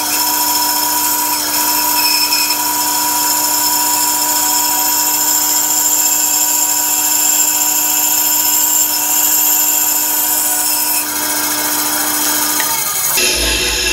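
Benchtop bandsaw running with a steady whine while its blade cuts through a thick wooden blank. The high cutting noise drops away about eleven seconds in as the blade clears the wood, and the saw keeps running.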